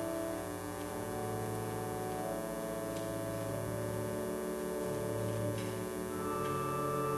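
Church organ playing slow, sustained chords, the held notes changing every second or two.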